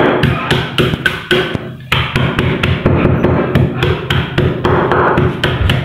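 Wooden rolling pin pounding ice wrapped in a cloth on a stone countertop: repeated hard knocks, about three to four a second, crushing the ice for shaved-ice gola ganda.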